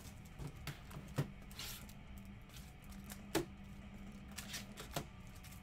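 Trading cards and their plastic holders being handled: scattered light clicks, taps and rustles, with a faint steady low hum underneath.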